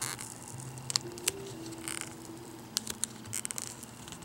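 Fingertips gripping and starting to peel adhesive tape off the LCD panel's video cable connector: scattered small clicks and scratchy crackles of the tape lifting, with a cluster of quick clicks near the end.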